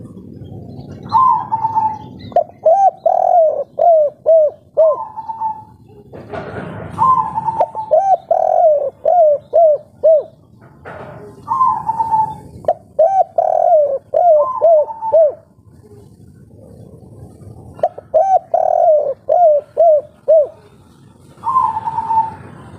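Spotted dove (derkuku) singing its cooing song, the 'kuk 3' type prized by keepers, repeated about four times. Each phrase opens with a higher coo, runs into a quick string of short, lower dropping notes and closes on a higher coo, with a new phrase starting near the end.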